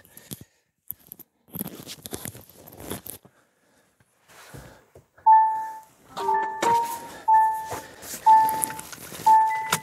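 Rustling and handling noises, then the Kia Niro PHEV powering up: an electronic chime about five seconds in, a short multi-tone startup melody, then single chimes about once a second.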